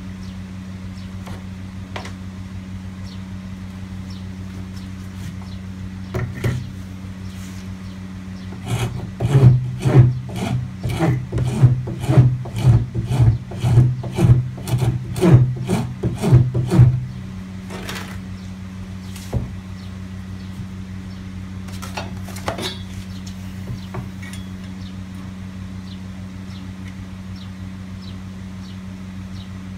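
Hand filing wood: a flat file worked up and down in a hole in a plywood jig, about two rasping strokes a second for some eight seconds starting about nine seconds in, each stroke knocking the board. A few single scrapes and knocks come before and after, over a steady low hum.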